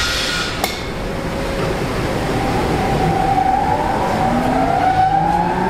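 Steady machinery noise in a woodworking shop, with a sharp click just under a second in. From about two seconds in, a motor whine rises steadily in pitch as a machine's motor spins up to speed.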